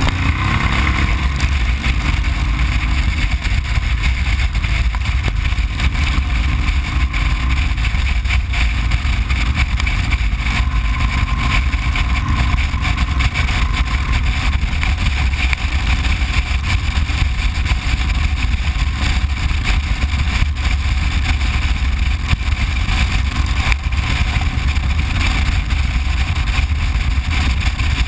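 Cruiser motorcycle riding at a steady speed, heard from the rider's position: a steady low rumble of engine and wind rush, with no revving or gear changes.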